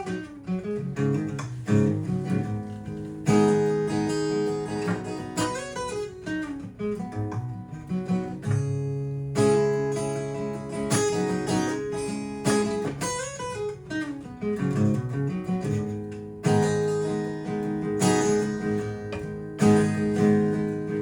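Acoustic guitar played solo, strummed chords ringing out one after another.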